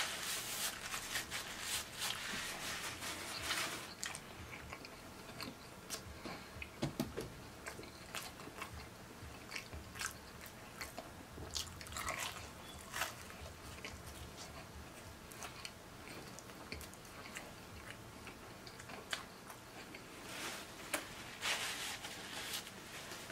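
A person biting and chewing pepperoni pizza with the crust crunching, many short wet mouth clicks throughout. A paper napkin is rubbed across the mouth at the start and again near the end.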